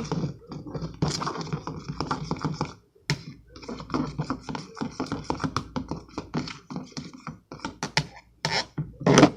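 A utensil stirring and scraping a wet glue-and-lotion slime mixture in a bowl: quick, irregular scrapes and taps, with a brief break about three seconds in.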